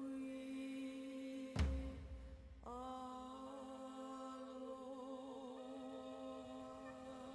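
A voice humming or chanting long, held notes with a slight waver. A sharp thump and a second of low rumble break it about a second and a half in, and then the note resumes.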